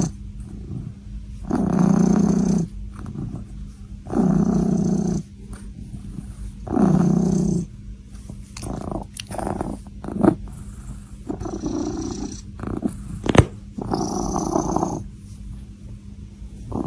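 A pet growling in drawn-out low rumbles, four of them about two and a half seconds apart, then shorter, irregular growls with a sharp click about thirteen seconds in.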